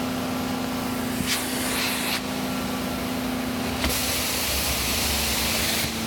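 Carpet extraction machine running with a steady hum. About four seconds in, a loud hiss starts as the cleaning wand sprays and works over the carpet.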